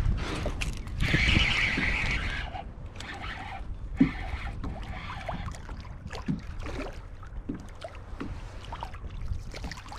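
Wind buffeting the microphone and water lapping at a kayak hull, with a brief louder hissing rush about a second in and scattered light knocks, the sharpest about four seconds in.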